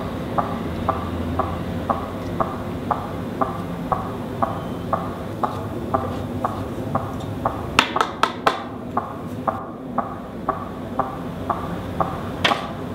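Steady, regular ticking, about two ticks a second, over a low hum. A quick run of sharper clicks comes about eight seconds in, and one more sharp click near the end.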